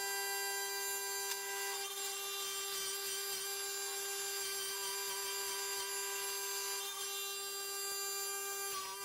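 Electric power tool motor running at a steady high pitch, with the scratchy hiss of an abrasive working on the vise's metal.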